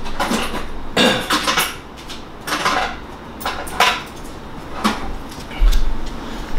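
Kitchen items knocked and set down on a counter: about eight separate clatters and knocks, some ringing briefly like metal or crockery, with a low thump near the end.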